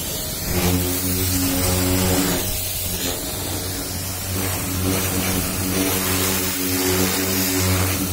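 Electric high-pressure washer jetting water against a car's side panel and wheel: a steady hissing spray over the loud, even hum of the washer's motor and pump. The hum drops away briefly about two and a half seconds in, then comes back.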